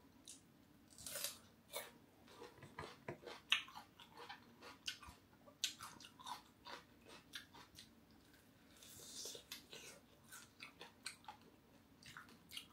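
Close-miked chewing and biting of fresh cucumber and crispy fried catfish belly: an irregular string of small crunches and mouth clicks.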